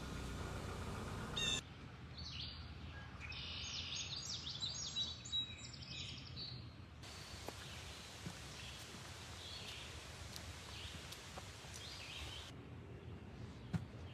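Wild birds singing and chirping in quick high notes, busiest in the middle and fainter later, in several clips cut together. It opens with about a second and a half of a steady low hum.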